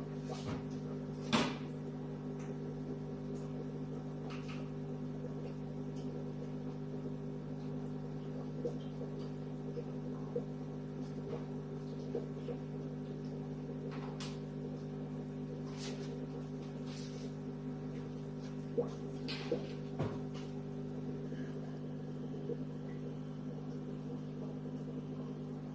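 Aquarium air pump running the tank's sponge filter: a steady electric hum, with a few faint clicks scattered through it.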